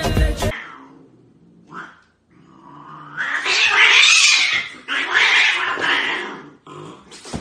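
Cats yowling at each other in a standoff between a white cat and a hairless Sphynx cat. The yowls come in two long, loud stretches, starting about two seconds in and ending shortly before the end.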